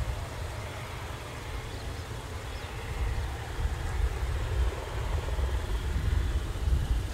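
Wind buffeting the microphone in uneven low gusts, over a faint steady background hiss of engine noise. The buffeting swells again near the end.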